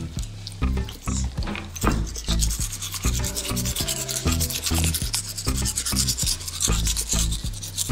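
Scratchy rubbing of a toothbrush scrubbing a Siberian Husky puppy's teeth, over background music with a stepped bass line.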